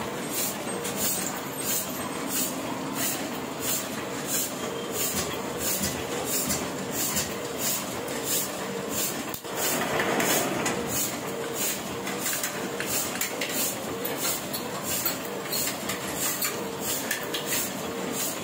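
Small offset printing press running, its rollers and mechanism clattering in a steady rhythm about twice a second, with a brief louder rush of noise about halfway through.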